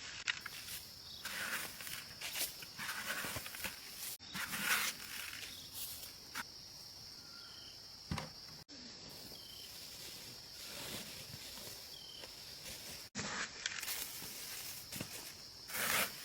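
Steady high insect drone, with a few short bird chirps and repeated bursts of rustling and scraping from hand work among plants and soil.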